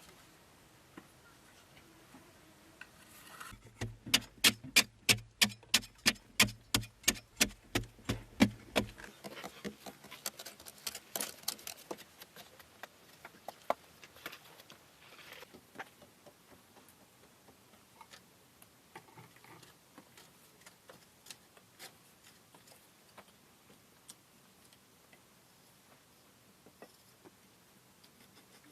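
A fast, regular run of sharp knocks, about three or four a second for some five seconds, then scattered lighter taps and clicks.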